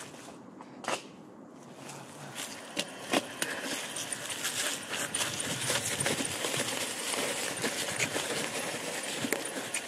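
Gravel bike rolling along a dirt trail, its tyres running over packed earth and fallen leaves while the bike rattles and clicks over bumps. It grows louder from about two seconds in as the bike picks up speed on the descent.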